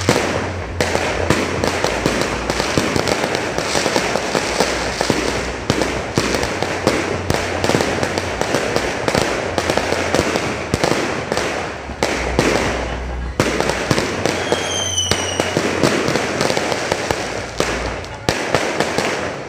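Fireworks display: aerial shells and rising comets firing in quick succession, a dense run of bangs and crackling bursts that thins out near the end. A short high whistle sounds about fifteen seconds in.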